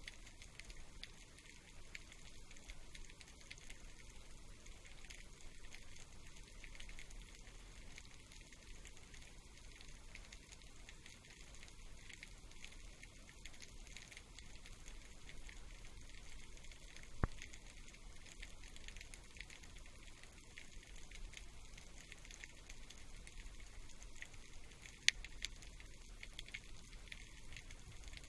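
Faint underwater crackling, a steady patter of tiny clicks, with two sharper clicks, one past the middle and one near the end.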